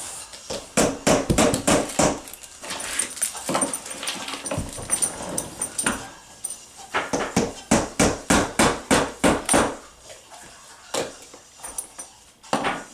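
Hammer tapping on a plastic kids' ride-on car's wheel and axle: quick runs of sharp blows, about three to four a second, in two main runs near the start and past the middle.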